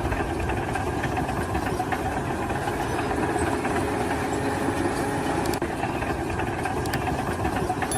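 An engine running steadily at idle, with a few faint clicks.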